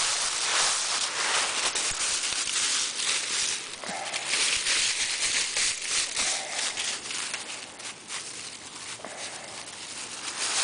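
Dry fallen leaves crunching and rustling underfoot as someone walks through a thick layer of leaf litter, a steady crackly shuffle of steps, quieter for a couple of seconds near the end.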